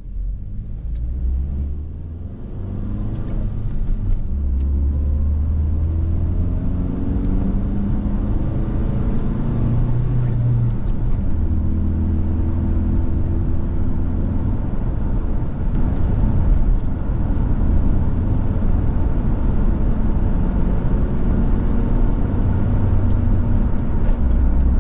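2010 Ford Ranger's 2.3-litre four-cylinder engine pulling away and accelerating, heard from inside the cab. Its pitch climbs and drops back several times as the five-speed manual is shifted up through the gears, over a steady low rumble of road noise.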